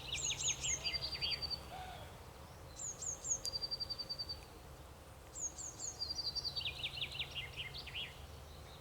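A songbird singing the same short song three times, each a few high down-slurred notes, then a fast trill, then a lower tumbling run of notes. A faint steady low rumble lies underneath.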